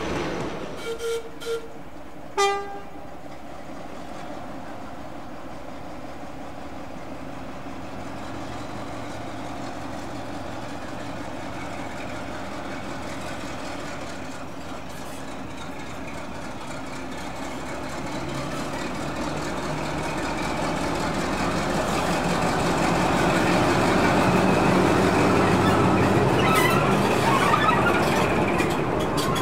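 Heritage diesel locomotive sounding its horn in three short toots in the first few seconds, the last one loudest. Its engine and running noise then grow steadily louder as the train approaches, loudest near the end.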